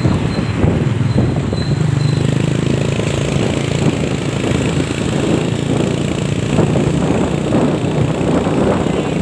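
Motorcycle riding along a road: its engine running steadily under a dense rumble of wind and road noise.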